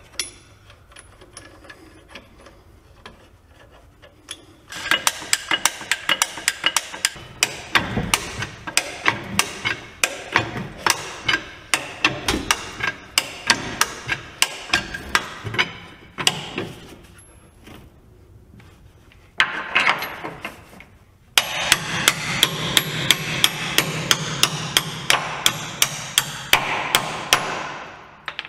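Hammer blows on the steel of a truck leaf spring's eye and hanger, at about three a second, driving the spring-eye bolt home. The blows come in two long runs with a short pause between them, the second run over a steady low hum.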